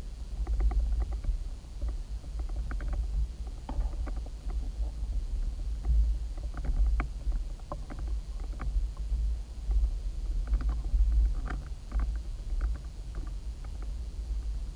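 Underwater ambience picked up through a submerged camera's waterproof housing: a low, steady rumble of water moving against the housing, with scattered faint clicks and ticks.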